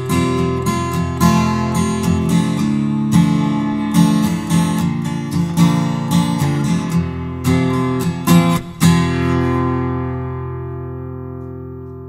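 Background music: acoustic guitar picking and strumming, ending about nine seconds in on a final chord that rings out and slowly fades.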